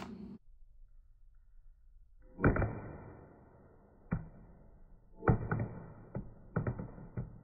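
A Coolpad 3310A smartphone, dropped about three feet, hitting a bare concrete floor: one sharp clack about two seconds in, a light tick, then a quick run of clattering knocks near the end as it bounces and settles.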